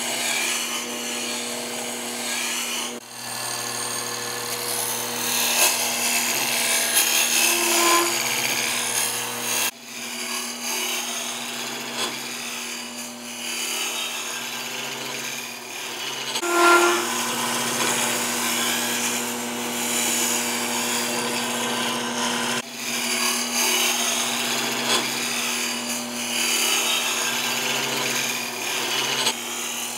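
A wood lathe runs with a steady motor hum while a hand-held gouge cuts into a spinning white oak block, making a continuous rough hiss of shavings tearing off. The cutting noise dips out briefly a few times.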